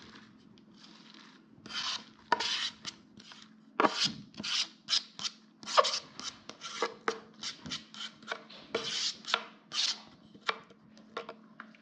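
Knife blade scraping repeatedly across a cutting board, sweeping finely chopped fresh coriander into a pot: a string of short, rasping strokes, about two to three a second, starting about two seconds in.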